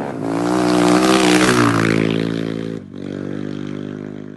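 Logo sting sound effect: a motor-like drone with a rushing hiss swells loud over the first few seconds. It dips briefly near three seconds, then carries on as a steadier drone.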